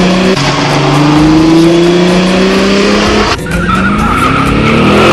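Sports car engine accelerating hard, its pitch climbing and dropping back at gear changes about half a second in and again after about three seconds. A steady tyre squeal joins in at the second shift.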